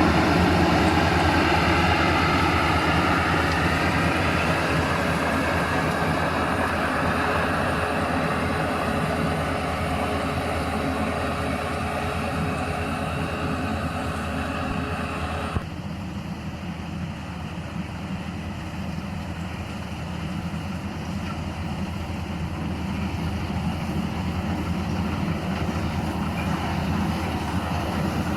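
World Star rice combine harvester running steadily at working speed, its engine and threshing machinery droning. About halfway through, the higher part of the sound drops away suddenly and the level eases, then slowly builds again.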